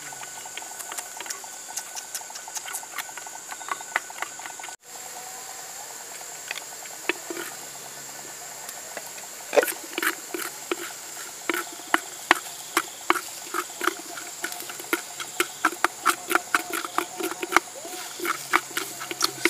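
Chopped vegetables sizzling in hot oil in a pot over a wood fire, with crackling, spitting pops that grow louder and denser from about halfway through.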